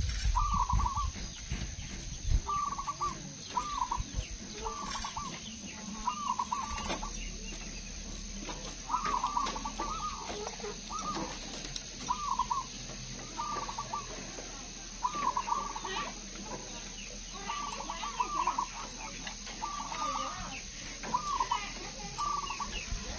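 Zebra doves (perkutut) cooing: short, trilled coos repeated in phrases about every second or so. A low rumble sounds in the first couple of seconds.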